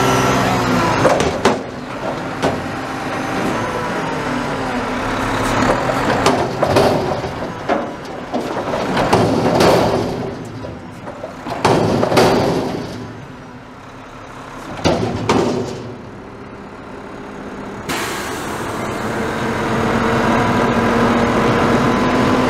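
McNeilus front-loader garbage truck dumping a steel dumpster into its hopper over the cab: a string of loud metal bangs and clatter as the container is tipped and shaken out and the trash falls in, over the truck's running engine and hydraulics. Near the end the engine speeds up again as the arms lower the empty container.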